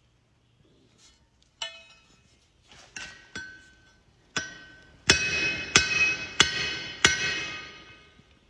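Blacksmith's hammer striking metal on an anvil, each blow ringing. A few scattered strikes come first, then four heavier blows evenly about two-thirds of a second apart.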